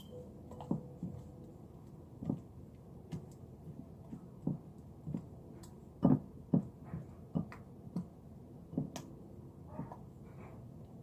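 Irregular soft clicks and knocks, roughly one every half second to second, as homemade glue slime is worked and mixed while it is coloured.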